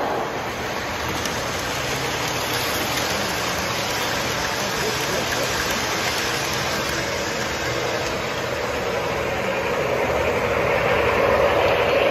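Model trains running on the layout's track: a steady rumble of wheels and motors. It grows louder near the end as a model steam locomotive comes closer.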